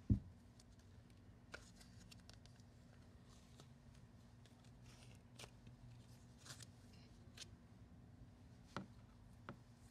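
Green slime being squeezed out of a plastic tub, stretched and pushed back in, giving faint scattered clicks and pops. A low thump right at the start, and a steady low hum underneath.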